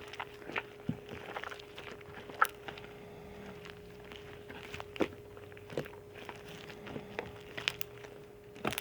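Slime and its plastic containers being handled: scattered small clicks, pops and crackles, a few sharper ones near the middle and end, over a steady faint hum.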